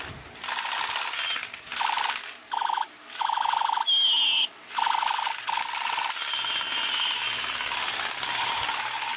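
Battery-powered toy gun firing its electronic machine-gun sound effect, with the fast rattle of its motor-spun drum. It goes in short bursts of a few tenths of a second to about a second each, trigger on and off, with a few high chirps midway and a longer run near the end.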